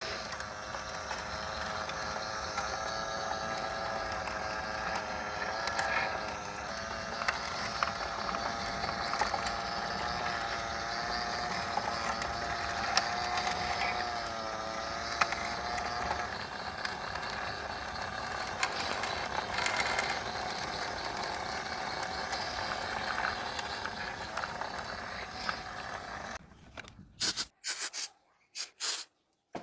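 Small electric fan motor running with a wavering whine and a mechanical rattle of ticks. Near the end it gives way to a few short, loud bursts with silent gaps between them.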